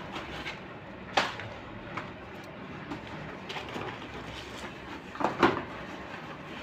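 Firecracker boxes and packets being handled: a few short knocks and light rustles, the clearest about a second in and a double knock about five seconds in.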